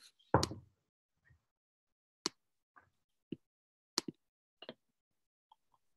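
A brief sound just under half a second in, then a handful of isolated short clicks and knocks spread over the next few seconds, with dead silence between them.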